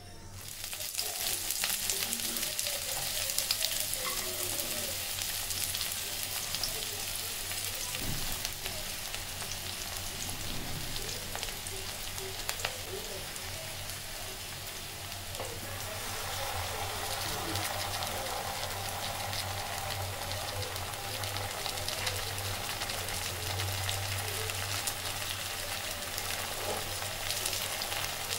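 Hot oil sizzling in a steel pan as ingredients fry in it. The sizzle comes up sharply about a second in and runs on steadily, changing in tone a little past halfway.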